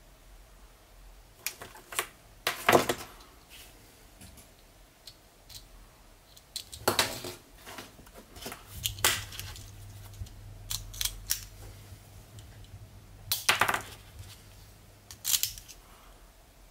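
Plastic LEGO parts and sensors being handled and put down on a tabletop: scattered sharp clicks and light knocks at irregular gaps, the loudest about three seconds in.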